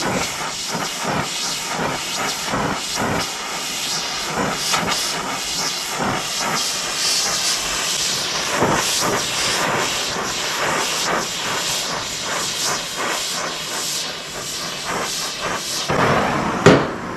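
Oxy-fuel torch flame hissing steadily as it heats a flat steel bar red hot for bending, with a short knock near the end.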